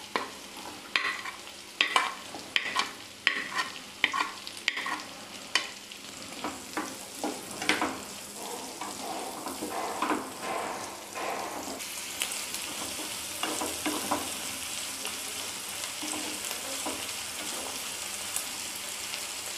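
Chopped red onion frying in butter and oil, sizzling, with a wooden spatula knocking and scraping against the pan and plate as the onion is tipped in and stirred. The knocks come thick and fast for the first eight seconds or so, then the sizzle carries on steadily with only the odd knock.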